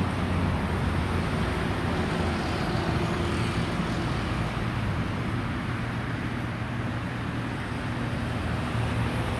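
Steady low engine drone with a few held low tones, unchanging in level.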